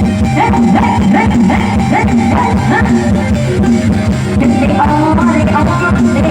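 Loud live band music played through a PA sound system: a steady drum-kit beat and bass under a bending, sliding melody line.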